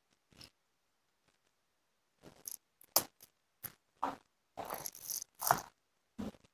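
A scatter of light clicks, knocks and short rustles of dishes and utensils being handled in a kitchen, starting about two seconds in.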